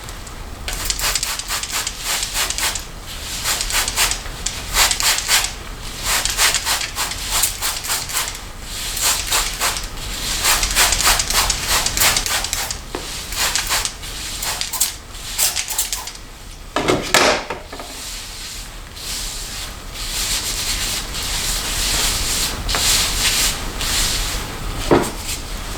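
Runs of quick, scratchy rubbing strokes, like brushing or handling things close by, with a sharper knock about two-thirds of the way through and another brief one near the end.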